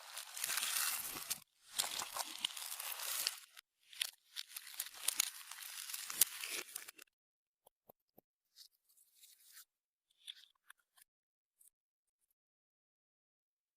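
Clear slime being stretched and squished by hand, giving sticky crackling and tearing noises in repeated bursts. After about seven seconds it stops, leaving only a few faint clicks.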